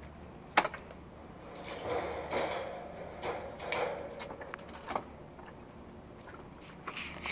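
Handling noise from a black wire pet crate and a door: a sharp click about half a second in, then irregular metallic rattling and clatter for a few seconds, and another click near the end.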